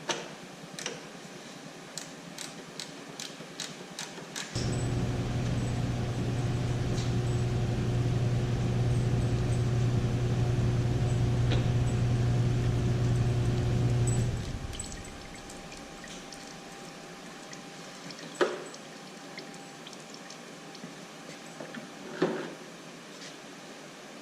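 A steady machine hum, like a small electric motor, starts abruptly and runs for about ten seconds, then winds down. Quick light clicks come before it, and two sharp knocks follow.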